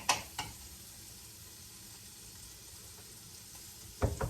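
Butter sizzling faintly in a frying pan on low heat. Two sharp clicks come just after the start, and a dull knock comes near the end.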